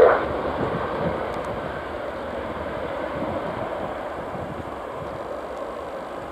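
Jet engines of a Jet2 Boeing 737 at takeoff thrust during its takeoff roll and rotation: a steady jet roar that slowly fades as the aircraft moves away.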